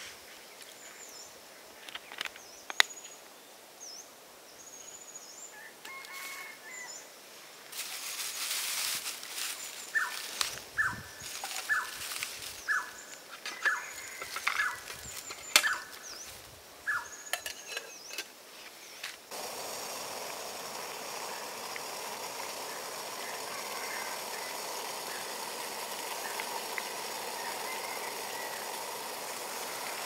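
Birds calling in short repeated notes and chirps while a plastic bag rustles as it is handled. About 19 seconds in, a steady hiss starts: a portable gas camp stove burning under a pot of water.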